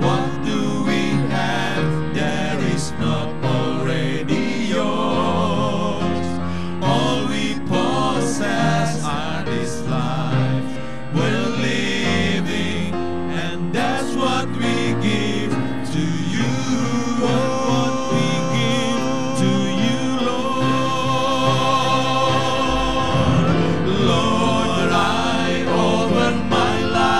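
Male vocal quartet singing a worship song in harmony into microphones, with wavering held notes, over piano accompaniment.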